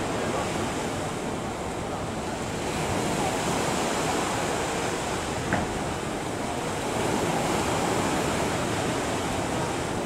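Steady wash of sea waves, with wind buffeting the microphone. A single short click about five and a half seconds in.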